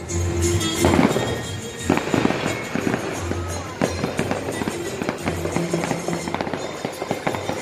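Music with a low bass line, overlaid by many sharp, rapid percussive hits and cracks.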